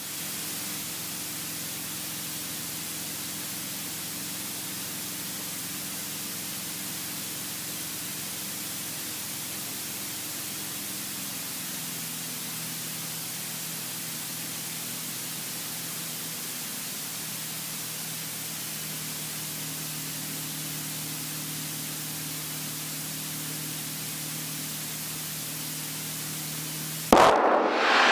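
Steady hiss in the cockpit over the faint low drone of the light aircraft's piston engine; about 12 seconds in the engine's note steps down lower. A brief, much louder burst near the end.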